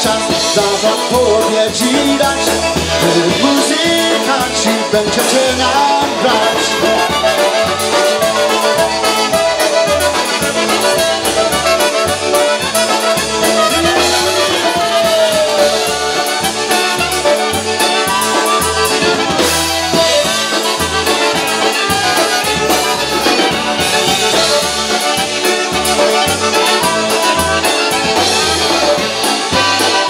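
Live polka band playing: accordion, trumpet, clarinet and saxophone over drums and bass with a steady beat.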